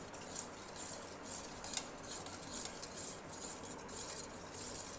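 Metal spoon stirring liquid jamun sherbet in a stainless steel pot, scraping and clinking against the pot's sides and bottom in a steady run of quick, irregular strokes.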